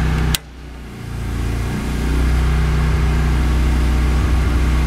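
A circuit breaker snaps on with a sharp click, putting load on a running Briggs & Stratton 15-horsepower generator engine. The engine sound drops away as it takes the load, then its pitch climbs back up over about a second and a half and it runs steadily again under load.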